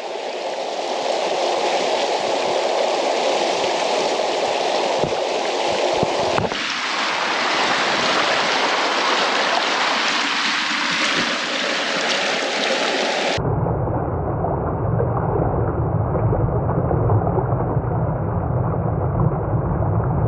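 Fast river water running over rocks close to the microphone, a steady rushing. About thirteen seconds in the sound turns abruptly muffled and low, a deep rumble, as the camera goes down to the water's surface for the fish's release.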